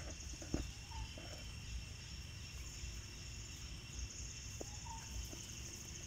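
Steady high-pitched insect buzz over outdoor ambience, with a few short rustles in dry leaf litter and two faint short chirps, about a second in and near the end.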